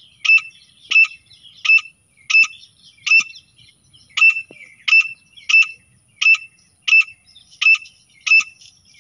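Grey francolin calling: a run of about thirteen loud, shrill notes, one every two-thirds of a second or so, with a slightly longer pause about four seconds in.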